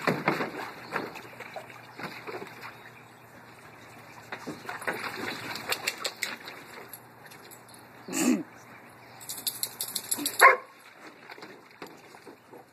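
A yellow Labrador retriever pawing and splashing at the water in a plastic kiddie pool, with irregular sloshes and knocks. A dog gives two short vocal calls, about eight seconds in and, louder, about ten and a half seconds in.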